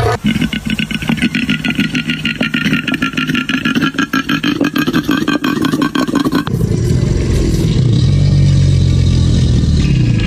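Animal calls: a rapid train of pitched pulses for about six seconds, then an abrupt switch to a steady low drone.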